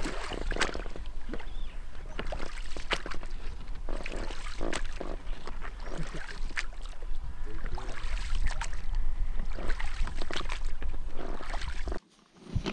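A small boat moving on the water, with irregular knocks and splashes over a steady low rumble. It cuts off abruptly near the end.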